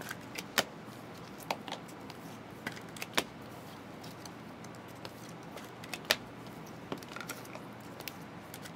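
Foil trading-card packs and cards being handled: scattered light clicks and snaps, about a dozen spread unevenly, with soft rustling between them.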